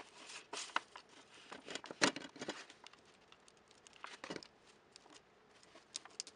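Foil candy wrappers crinkling and rustling under the fingers as ribbon is pressed onto them, with scattered light clicks and taps. The loudest crinkles come about two seconds in and again just after four seconds.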